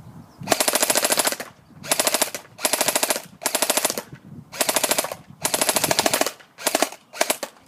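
SRC G36C airsoft electric gun firing about eight short full-auto bursts, each a fast, even rattle of shots lasting under a second, with brief pauses between them.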